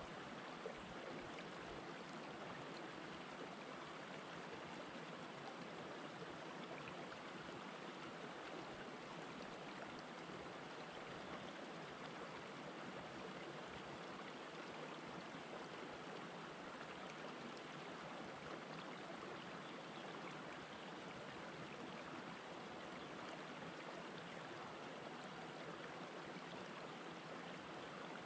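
Shallow rocky river flowing steadily over and around stones, a soft, even water rush.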